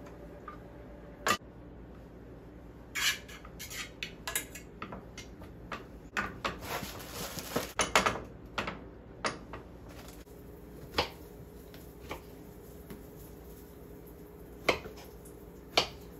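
Kitchen clatter from making breakfast: scattered clinks and knocks of dishes, utensils and a cupboard door, busiest in the middle, with a few single sharp knocks toward the end.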